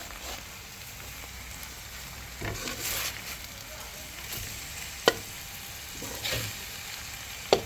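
Prahok and minced pork sizzling in hot fat in a pan while being stirred, with two swishing scrapes of the spatula. The spatula knocks sharply against the pan twice, about five seconds in and near the end.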